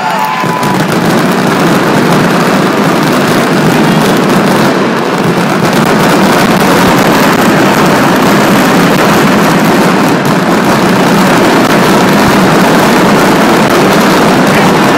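Mascletà firecrackers going off in a dense barrage, the bangs so close together that they run into one continuous loud rumble, which grows a little louder about six seconds in.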